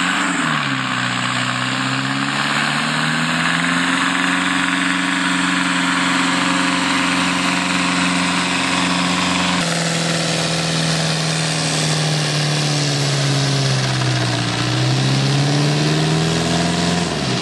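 Blue Ford farm tractor's diesel engine running and revving, its pitch sliding up and down, with a sag and climb back in engine speed near the end.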